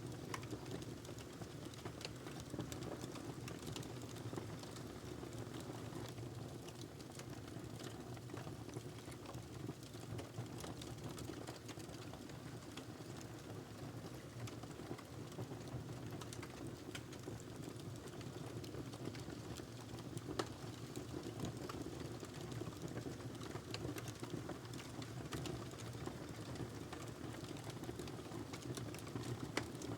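Wood fire burning in a fireplace, crackling steadily with frequent small sharp snaps over a low, even rush.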